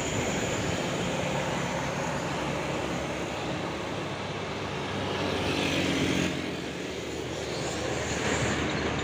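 Roadside traffic with a bus going past: a steady engine drone and tyre noise that swells, then drops off sharply about six seconds in.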